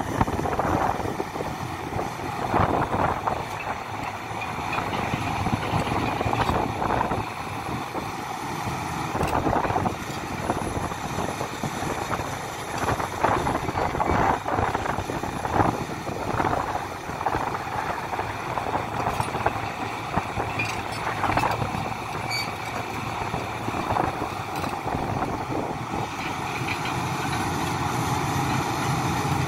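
Hidromek HMK 410LC crawler excavator's diesel engine running under load while it works, rising and falling, with irregular knocks and clatter throughout.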